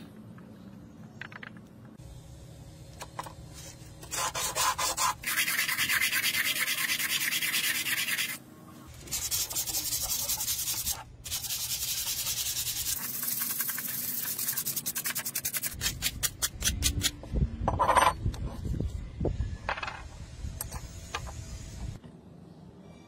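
Sandpaper rubbed by hand across a blackened brass sword guard, a rasping hiss in long stretches with short breaks. Near the end come a few clicks and knocks.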